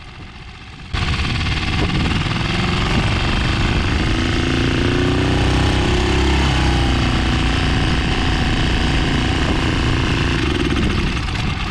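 Tohatsu 6 hp four-stroke outboard running in gear, its propeller churning water behind it. The engine note jumps up suddenly about a second in, climbs in pitch to a peak partway through, then eases back. The engine is being run in gear to test a suspected weak water-pump impeller.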